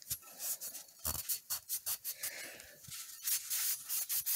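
Cloth rag rubbing along a steel shotgun barrel in quick, uneven wiping strokes, with a light knock about a second in.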